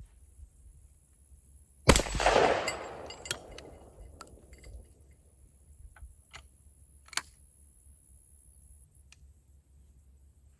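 A single shot from a Springfield Model 107 single-shot 12-gauge shotgun firing an old Remington No. 4 shot shell, about two seconds in, its blast echoing and fading over about two seconds. A few light clicks follow.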